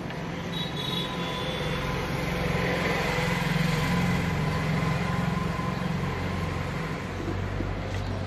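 A motor vehicle's engine running close by, getting louder over a few seconds and then easing off as its pitch drops, over roadside street noise.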